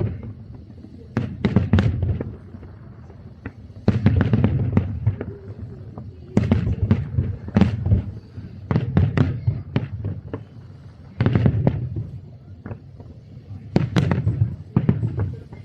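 Fireworks exploding in the sky in rapid volleys: about six clusters of sharp bangs over a deep rumble, a new cluster every two to three seconds.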